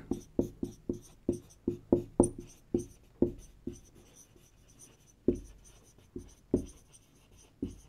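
Marker writing on a whiteboard: a quick run of short strokes, about four a second, for the first three and a half seconds. After a pause of about a second and a half, a few more scattered strokes follow.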